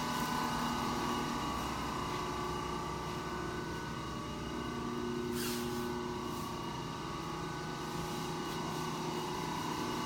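Large Monarch engine lathe running under power: a steady machine hum made of several constant tones, with a faint click about five seconds in.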